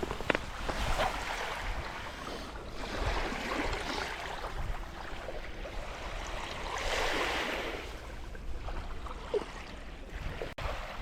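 Surf washing onto the beach in slow swells, with wind rumbling on the microphone underneath.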